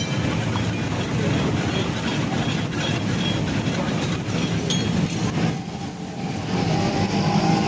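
Steel blades clattering rhythmically on a flat iron griddle as mutton katakat is chopped, with a metallic ring on some strokes.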